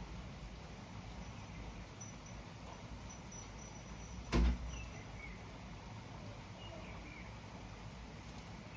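Steady rainfall, with a single sharp thump about four and a half seconds in and a few faint short chirps after it.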